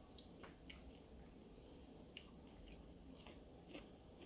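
Faint chewing of a mouthful of burger: a few soft, scattered mouth clicks and squishes.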